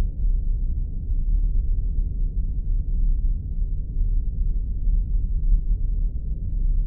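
Spaceship sound effect: a steady, deep rumble with nothing in the higher range.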